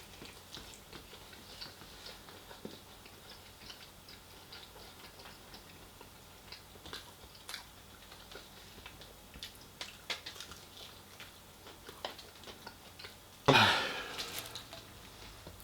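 Close-up mouth sounds of chewing fried chicken: soft, scattered clicks and smacks. Near the end there is one sudden, much louder sound that lasts about a second.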